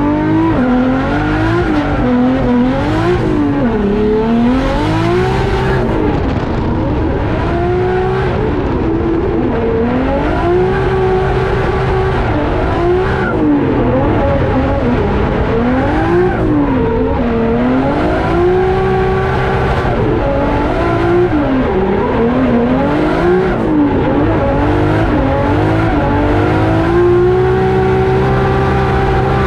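Toyota 1JZ inline-six engine in a drift car, revving up and dropping back again and again as the car is driven hard through a drift run, with the pitch rising and falling every second or two.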